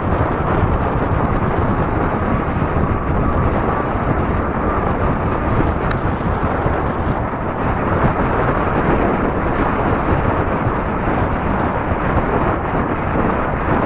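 Steady wind rush buffeting the microphone of a camera riding on a fat-tire e-bike along a paved road, a dense low rumble with no change in pace.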